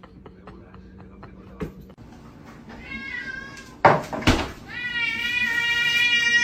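Domestic cat meowing: a short meow, two loud knocks, then one long, drawn-out meow.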